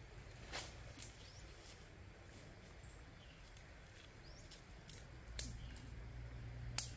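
Dry firewood sticks cracking and knocking together as they are set down and handled, a few sharp snaps with the loudest near the end. Faint bird chirps in the background.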